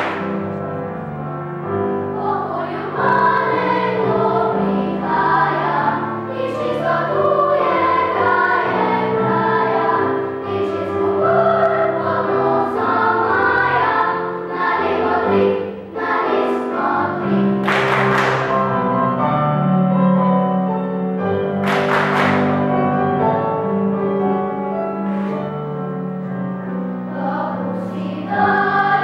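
Children's choir singing a Slovenian folk song with piano accompaniment.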